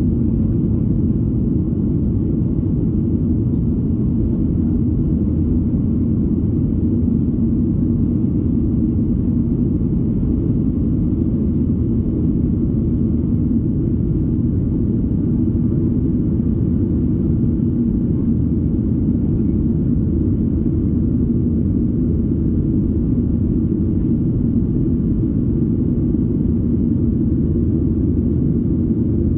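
Steady low rumble inside the cabin of a Boeing 737-800, the noise of its engines and the air around the fuselage heard from a rear window seat, with a faint steady hum in it.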